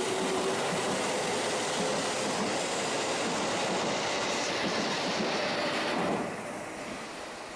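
JR Central 313 series electric train running past close to the platform: a steady rush of wheel and running noise that eases off about six seconds in.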